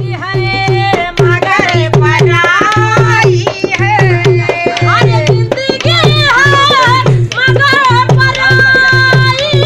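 Background music with a steady drum beat, about two beats a second, under a gliding melody that ends in a long held note.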